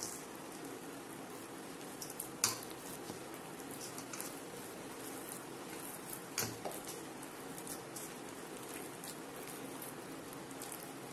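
A hand kneading a soft, wet batter of palm fruit pulp, banana, flour and grated coconut in a stainless steel bowl: faint wet mixing sounds and small clicks over a steady low hiss, with two sharper knocks against the bowl about two and a half and six and a half seconds in.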